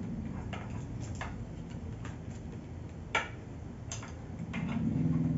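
Small doll figures tapped along a tabletop as walking steps: light clicks at uneven intervals, with one sharper tap about three seconds in.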